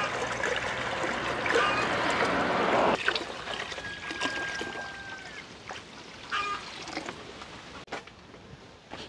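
Water poured from a large plastic jug into a stainless steel pot, a steady splashing pour into water already in the pot that stops sharply about three seconds in.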